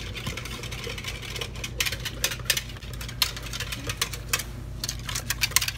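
A utensil stirring milk in a yogurt maker's plastic container, clicking and scraping against its sides in quick, irregular knocks as gelatin and starter yogurt are mixed in.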